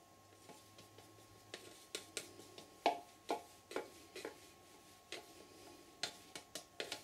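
Stir stick scraping and tapping against the inside of a paint cup, scraping out the leftover acrylic pouring paint. Faint, irregular sharp clicks and scrapes, coming closer together near the end.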